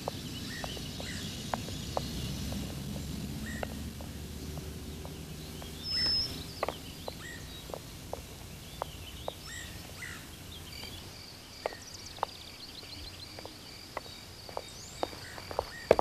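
Outdoor ambience: birds chirping now and then over a low background rumble, with scattered sharp clicks that come faster and louder near the end.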